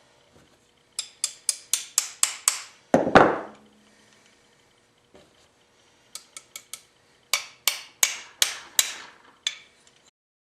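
Small hard-tipped hammer tapping steel wedges driven between a drill chuck and its taper mandrel to force them apart. The taps come in quick runs, with one heavier knock about three seconds in.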